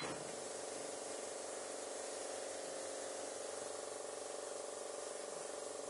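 A steady hum with hiss, with a faint click at the start.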